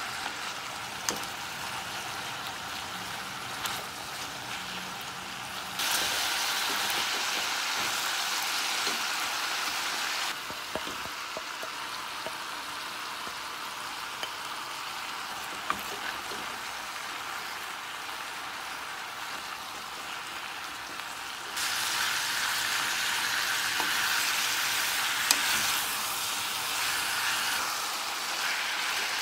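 Pork, onion and cabbage sizzling in a saucepan over a gas flame, a steady frying hiss that steps up louder twice for several seconds at a time, with a few sharp clicks. Near the end a wooden spatula stirs the sauced mixture.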